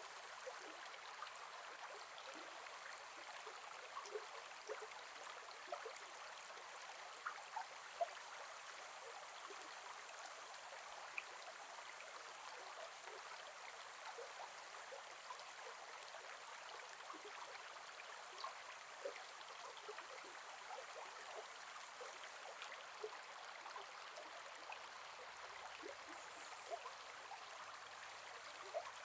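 Gentle forest river flowing: a steady soft rush of water with small splashes and gurgles scattered throughout.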